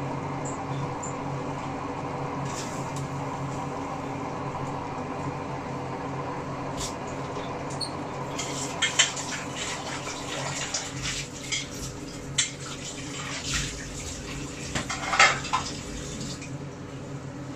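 Kitchen dishes and utensils clinking and knocking: a run of sharp clinks in the second half, over a steady hum.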